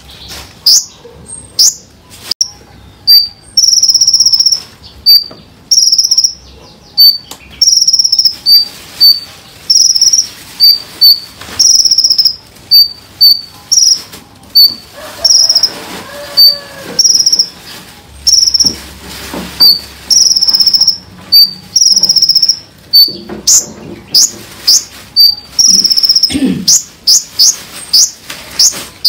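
Small songbird singing high and loud: a rapid run of short, sharp descending whistled notes at the start and again near the end, and between them a long repeated phrase of short steady high notes alternating with brief pips.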